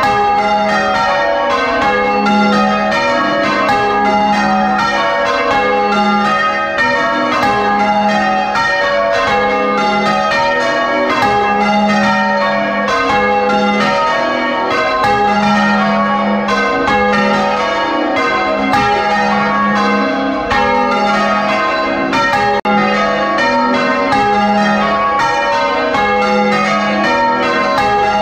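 A ring of six church bells, tenor 9 cwt in A♭, rung full circle on their wheels and heard close up in the bell chamber: loud, evenly spaced strikes one after another, with the deepest bell's note coming round about every two seconds.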